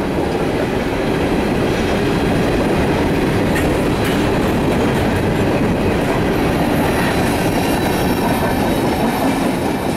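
Empty coal hopper cars of a freight train rolling past: a steady, loud rumble of steel wheels on rail.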